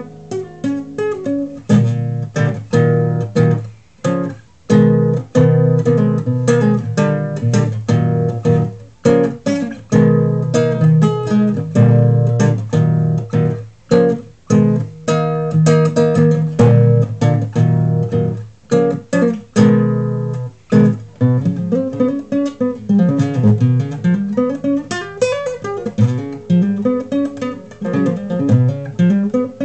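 Nylon-string classical guitar played fingerstyle in a progressive-metal style of improvisation: stop-start rhythmic chords with sharp percussive attacks and short gaps between phrases. After about twenty seconds it moves into faster single-note lines with sliding notes.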